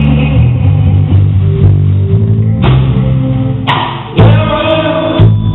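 Live gospel band music: bass guitar, guitar and drum kit playing. The sound dips briefly about four seconds in, then comes back in loud.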